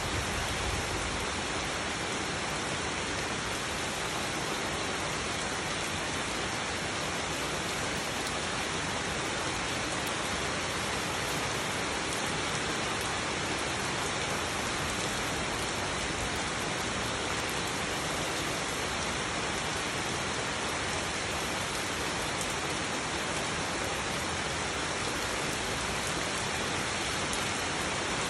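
Steady rain falling on broad leaves and wet, puddled ground, an even unbroken hiss.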